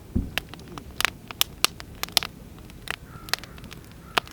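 Wood fire burning in a steel fire stand, crackling with sharp irregular pops, plus one low thump just after the start.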